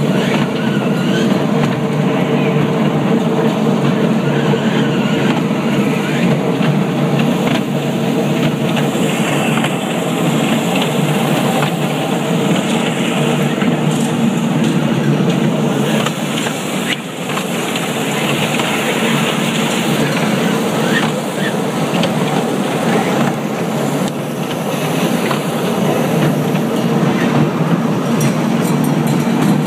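Children's ride-on mall train running steadily, heard from aboard, with a murmur of voices in the background.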